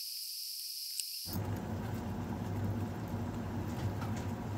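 A high, thin hiss that cuts off abruptly about a second in, followed by a steady low hum with a few faint clicks.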